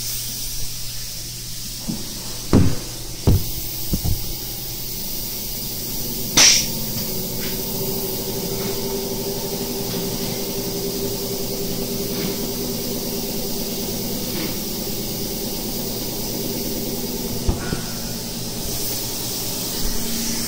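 A steady hiss, with three knocks of things being set down and handled in the first few seconds and a short swish about six seconds in. A faint low hum runs through the middle and stops near the end.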